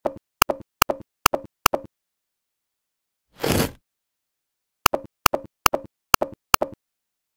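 Computer mouse clicking: evenly spaced sharp double clicks, about two or three a second, in two runs, with a short burst of noise about three and a half seconds in.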